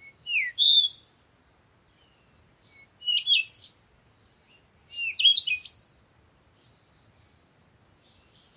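Morning songbirds singing: three short bursts of quick, high, warbling notes, about a second in, about three seconds in and about five seconds in, followed by faint, thin chirps.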